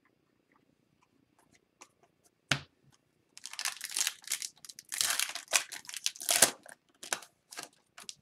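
Plastic wrapper of a 2021-22 Upper Deck Series 2 hockey card pack being torn open and crinkled by hand, a dense crackle that starts about three seconds in and runs for about four seconds. A single sharp knock comes just before it.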